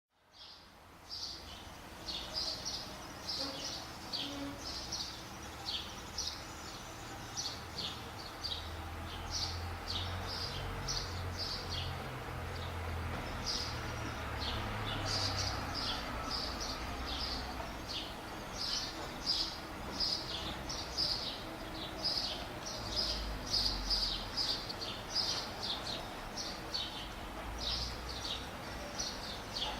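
Quiet summer morning outdoor ambience: small birds chirping in quick short notes, over a faint steady background haze with a low rumble that swells in the middle.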